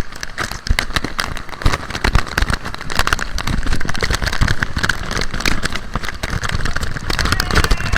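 Loud, steady rush of a waterfall, with irregular crackles and low thumps on top.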